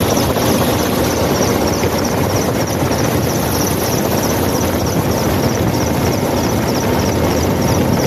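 Helicopter in flight heard from inside the cabin: a loud, steady rush of rotor and engine noise with a faint regular beat from the blades.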